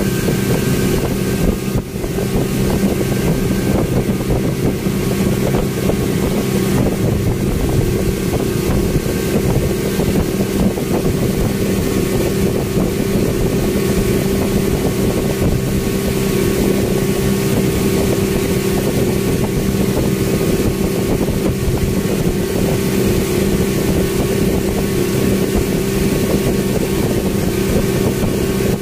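Speedboat engine running steadily at cruising speed, an even drone heard from inside the covered passenger cabin, with wind rushing past.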